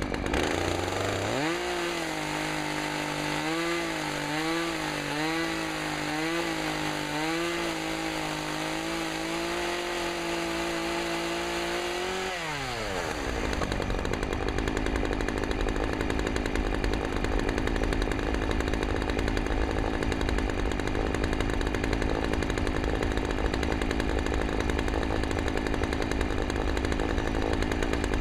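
Two-stroke chainsaw throttled up to a high, steady whine. Its pitch dips briefly about five times, then falls away as the throttle is released about halfway through, leaving a rough, even running noise.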